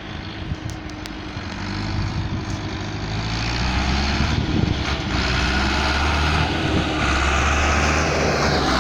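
Renault 90-34 tractor's diesel engine running with a steady low drone, getting louder over the first few seconds and then holding steady.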